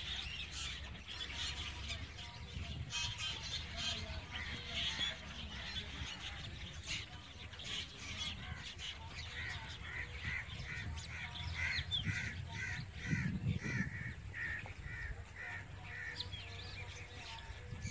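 Birds calling and chirping in roadside trees, over a low steady rumble. About halfway through, one bird starts repeating a call about twice a second for several seconds.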